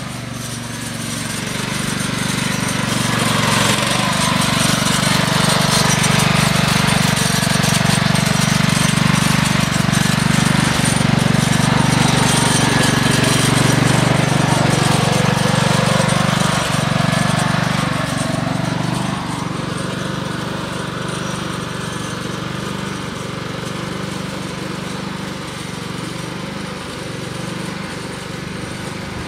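Riding lawn mower engine running steadily. It grows louder over the first few seconds as the mower comes close past, stays loud through the middle, then turns fainter about two-thirds of the way through as it drives off across the grass.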